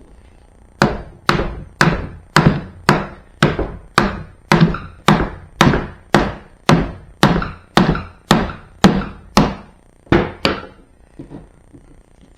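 Rubber-ended mallet tapping a new hinge along the rail of a BMW pannier, about twenty even strikes at roughly two a second, then a couple of light taps near the end.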